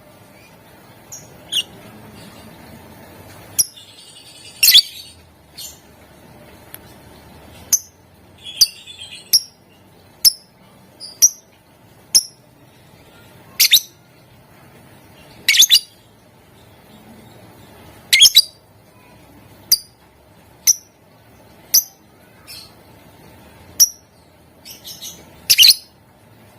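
Lovebird giving short, sharp, high chirps, roughly one a second at irregular intervals, some much louder than others.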